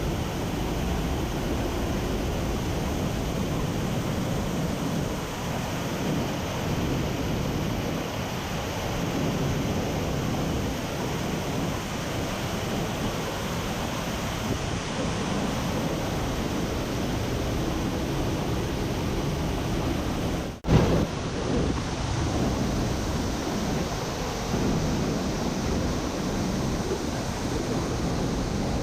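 Steady rushing of a large waterfall, a dense even wash of falling water, with a short break and a sharp jolt about two-thirds of the way through.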